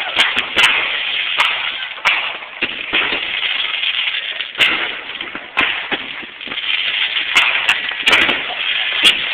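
Fireworks going off: a continuous crackling hiss from burning effects, broken by sharp bangs of bursting shells about once a second.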